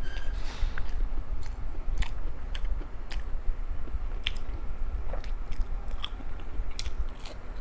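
Close-miked chewing and biting of food, with irregular sharp crunches and mouth clicks.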